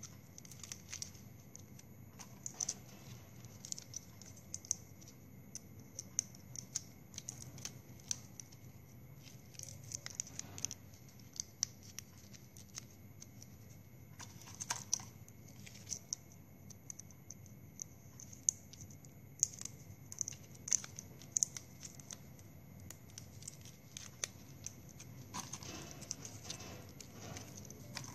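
Plastic drinking straws clicking and rustling as they are handled and fitted together, with irregular light ticks. Twice there is a longer rustle of cut straw pieces being stirred in a clear plastic tub.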